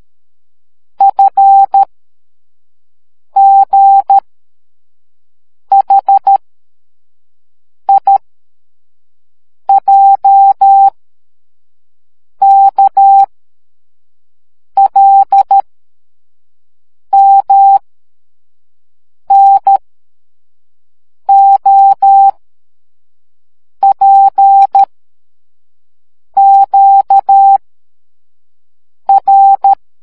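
Morse code sent as a single-pitch beep tone: the alphabet spelled letter by letter, from F through Q, each letter a short group of dots and dashes with a pause of about a second between letters.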